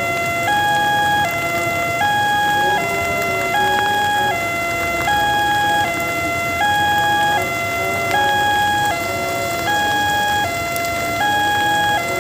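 Electronic warning siren of a railway level-crossing gate, alternating steadily between a higher and a lower pitch, switching about every three-quarters of a second: the crossing alarm sounding for an approaching train.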